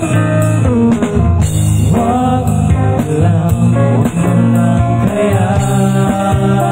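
Live band playing a slow song amplified through PA speakers: electric bass and guitars, with a voice singing.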